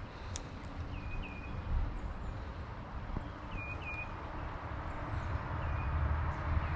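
Steady rush of creek water, with a small bird giving short, repeated chirps, several in quick pairs.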